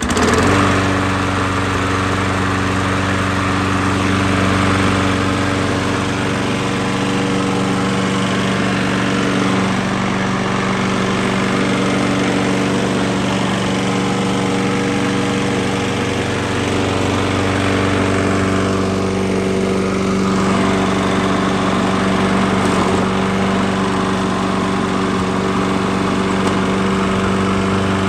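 Toro push mower's Briggs & Stratton engine catching right at the start and then running at a steady speed, starting readily now that its carburetor has been cleaned.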